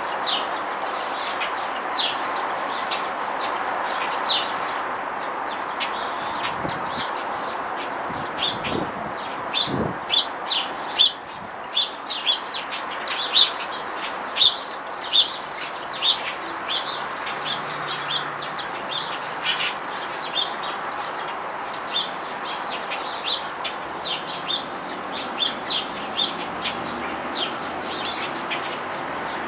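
House sparrows chirping: a continual run of short, sharp chirps, thickest in the middle stretch, over a steady background noise.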